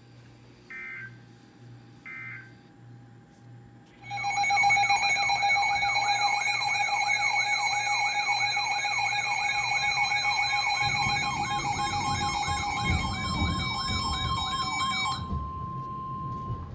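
Two short bursts of EAS digital header tones, the end-of-message code closing the warning, near the start. About four seconds in, a loud electronic siren starts up, sweeping up and down a little over twice a second over a steady tone. It cuts off abruptly about a second and a half before the end.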